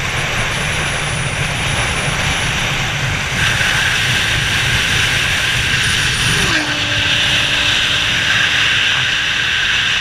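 A car running fast, a loud, steady rush of engine and road noise, with a short falling tone about six and a half seconds in; the sound cuts off suddenly at the end.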